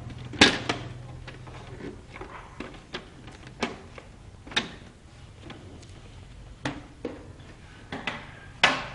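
Plastic casing of an Epson L200 printer being pried off by hand: irregular sharp plastic clicks and clacks as the case's latches snap free and the shell knocks, the loudest about half a second in and again near the end.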